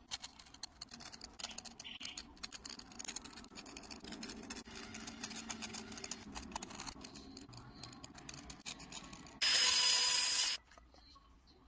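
A small blade scraping an eggshell in many fine, quick scratches. About nine seconds in, a small rotary engraving tool runs against the shell for about a second with a high whine, the loudest sound, then stops.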